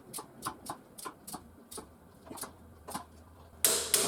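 Ratchet of a torque wrench clicking in a steady run of sharp ticks, about three to four a second, as a hub bolt is wound down. Near the end comes a louder, longer burst of noise.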